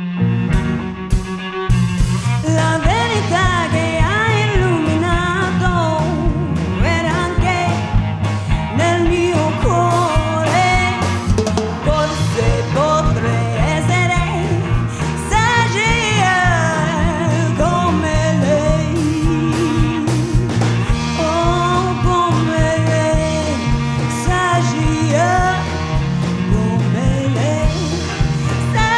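A live rock band with bass, drums and cello playing: a steady bass line and drum beat under a lead melody that slides up and down in pitch.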